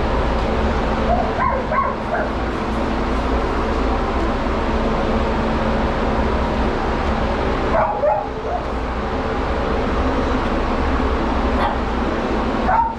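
A pet blow dryer runs with a steady rush and hum, while a dog whimpers and yips in three short bursts over it.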